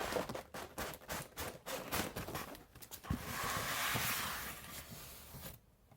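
Cardboard ceiling-fan box and its packing being handled and opened: a quick run of knocks and taps, then about three seconds in a longer scraping rustle of cardboard that fades out.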